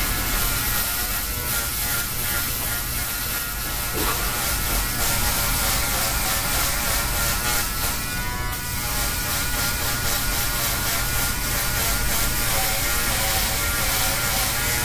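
Electric shaver buzzing steadily as it is run over a closely shaved scalp, shaving the head down to the skin.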